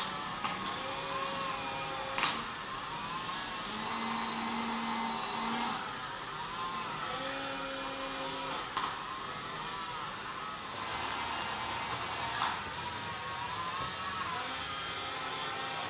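Small electric motors of a moving kinetic sculpture whirring steadily, their pitch wavering up and down, with short lower hums that start and stop and a few sharp clicks.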